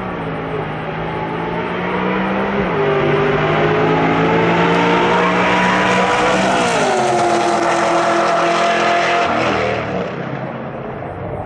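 Two street cars drag racing side by side, engines at full throttle and climbing in pitch. The pitch drops back at two upshifts, about three and seven seconds in. The sound is loudest as the cars pass, then fades off down the track near the end.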